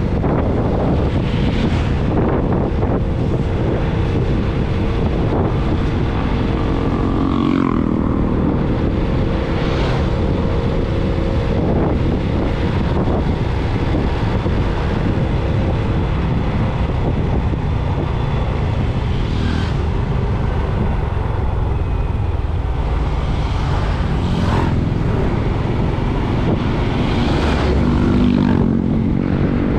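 A vehicle driving along a road: steady engine and tyre noise with wind on the microphone, the engine pitch rising and falling a few times.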